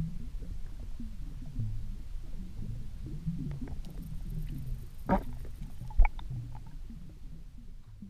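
Muffled low rumble of water against an underwater camera housing, with a few sharp knocks, the loudest about six seconds in, as tench feed right against the camera.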